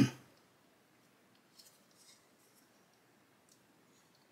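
Faint, sparse clicks and light taps of small plastic model-kit parts being handled and test-fitted by hand onto a plastic fender, after a brief louder rustle at the very start.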